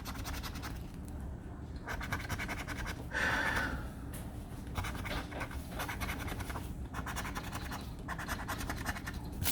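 A scratch-off lottery ticket being scratched: runs of quick, rasping strokes across the card's coating, with short pauses between runs.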